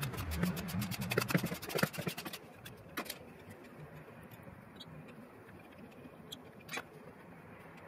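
Socket ratchet clicking rapidly as a T60 Torx hub bolt is backed out of the BMW i3's rear hub, stopping after about two and a half seconds, followed by a few single metal clinks.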